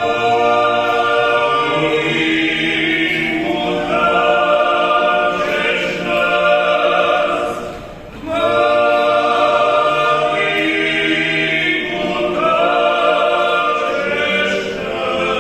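An a cappella choir singing held chords in several-part harmony, in two long phrases with a short breath between them about eight seconds in.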